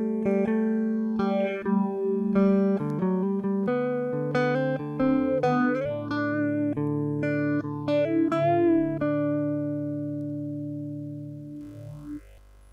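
Electric guitar played through an Elektronika 12-011 Soviet multi-effects unit: a run of picked notes, some of them bent, over sustained low notes. The notes then ring out and fade away over the last few seconds.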